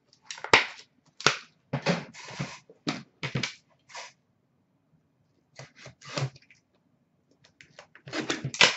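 Handling noise: short knocks, taps and scrapes as a sealed hockey card box is picked up and handled, coming in uneven clusters with quiet pauses between them and a denser run near the end.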